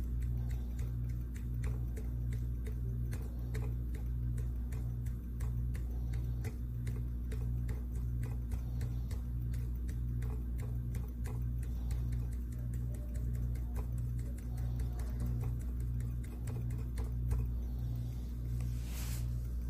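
Steady low machine hum that throbs evenly about three times every two seconds, with faint rapid ticking over it and a short hiss near the end.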